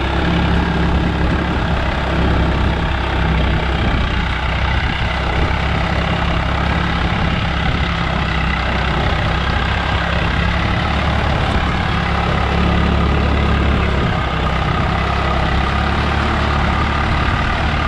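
Swaraj 744 FE tractor's three-cylinder diesel engine running steadily under load while pulling a seven-tine cultivator through dry soil.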